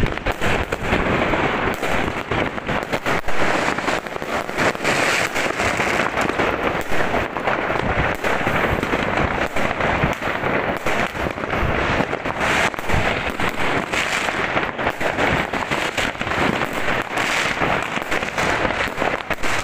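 Dense, continuous crackle of many fireworks and firecrackers going off at once, with sharp individual bangs all through it: a New Year's Eve fireworks barrage.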